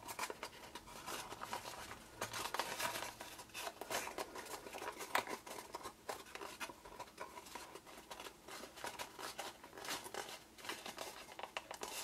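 Scored cardstock crackling and rustling under the fingers as the folds of a paper hexagonal box are pushed inward one by one: many small, quick crackles.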